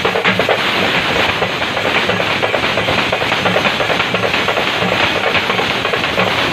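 Fast, dense drumming on frame drums beaten with sticks, recorded up close so that it comes through as a loud, distorted clatter of rapid hits.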